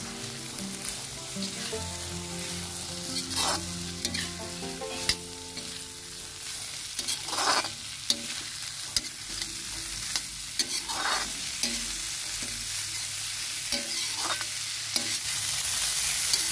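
Boiled black chickpeas sizzling in hot mustard oil and spice paste in a metal kadhai, stirred with a metal spatula that scrapes the pan every few seconds.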